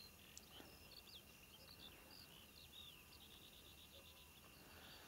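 Faint chirping and twittering of small songbirds: many short calls scattered through, with a quick run of chirps near the end.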